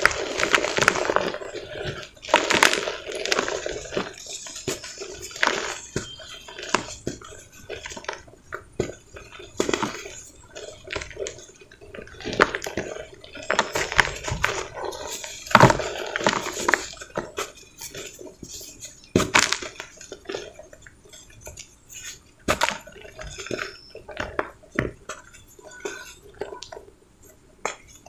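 Dry cement powder and crumbly cement balls being squeezed, crumbled and sifted through the fingers: irregular soft, dusty crunches and the hiss of falling powder, with louder crumbling every few seconds.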